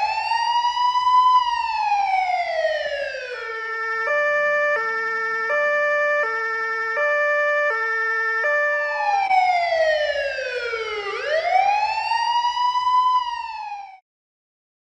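Police car siren: a slow wail rising and falling in pitch, switching for about five seconds to a two-tone hi-lo, then back to the wail. It cuts off abruptly near the end.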